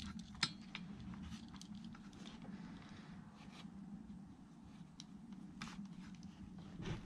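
Faint scattered clicks and rubbing as rubber fuel lines are worked by hand onto the fittings of a replacement trimmer carburetor, with a few sharper ticks, over a steady low hum.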